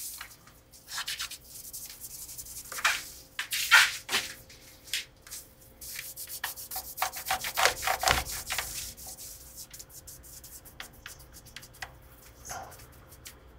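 Cloth rubbing back and forth along a guitar's oiled rosewood fretboard and frets, wiping off excess lemon oil, in irregular strokes that are loudest in the middle stretch.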